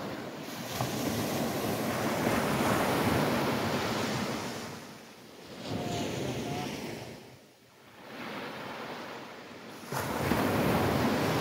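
Small waves breaking and washing up the beach, with wind buffeting the microphone. The noise swells and fades, dips low about seven seconds in, then rises again suddenly near the end.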